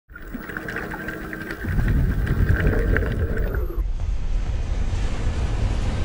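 Intro sound effects: a deep rumble that swells about two seconds in, under a steady high tone with crackling that stops about four seconds in.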